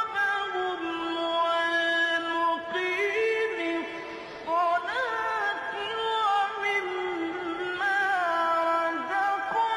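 A single voice chanting a slow melodic line, holding long notes and sliding through ornamented, wavering turns between them.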